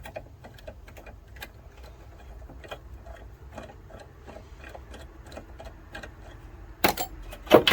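Ratchet wrench clicking in short, uneven strokes, about two to three clicks a second, followed by two loud metallic clanks near the end.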